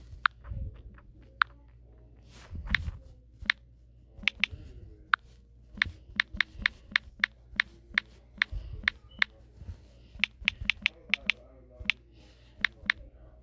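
Typing on a smartphone's on-screen keyboard: an irregular run of sharp taps and clicks, a few soft low thumps among them.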